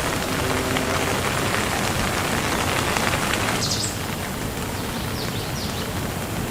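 Steady rain falling, an even hiss of drops that eases slightly a little past halfway. A few short high chirps sound near the end.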